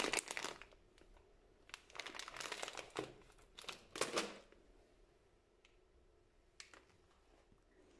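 Bag of penne pasta crinkling as it is handled, in four short bursts over the first few seconds, then a few faint ticks.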